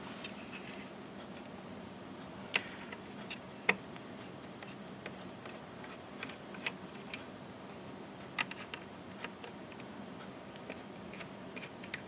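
Scattered light clicks and taps of a small screwdriver working on the screws of a hard drive in a metal drive caddy. The sharpest taps come about two and a half and three and a half seconds in.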